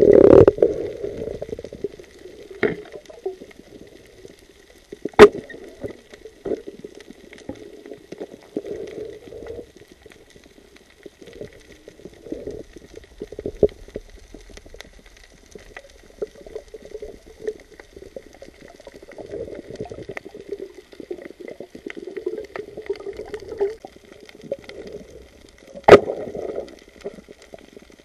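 Underwater sound heard through a camera's waterproof housing: muffled, uneven water movement and bubbling, with a loud burst of turbulence at the start. Two sharp knocks come about five seconds in and near the end, over a faint steady high whine.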